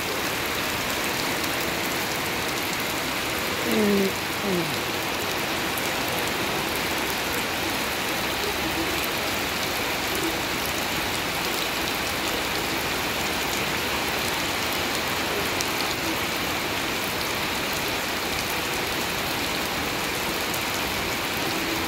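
Steady rain falling on grass and a puddle: an even, unbroken hiss. About four seconds in, a brief pitched sound slides down twice in quick succession.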